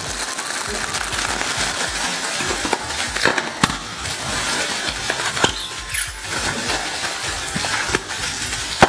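Plastic air-cushion packing pillows crinkling as hands squeeze them, with a few sharp pops as the pillows burst like firecrackers, the loudest pop near the end.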